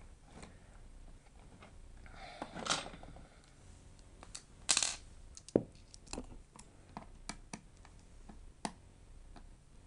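Scattered light clicks and taps of small tools, such as a screwdriver, against a laptop's screws and internal parts, with a few sharper clicks spread irregularly.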